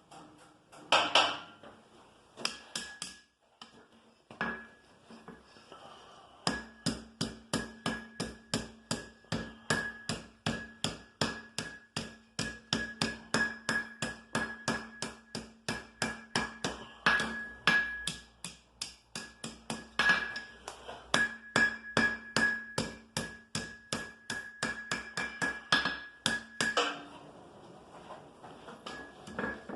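Hand hammer striking hot iron on an anvil while forging a scroll end: a few single blows, then a long steady run of ringing strikes at about two to three a second, stopping near the end.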